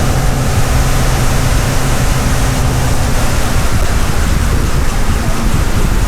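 A 2,500-horsepower diesel engine running at about 2,000 rpm, loud, with the rush of air from its huge cooling fan blowing against the microphone. A steady low engine hum fades out about three and a half seconds in, leaving the rushing air.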